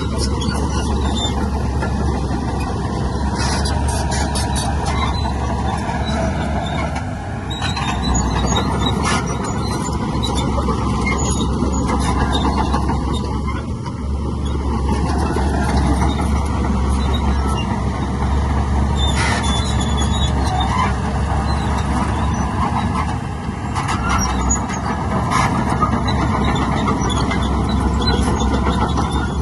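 Heavy diesel earthmoving machinery (dump trucks and a bulldozer) running steadily under load, with several short spells of metallic clanking and squealing.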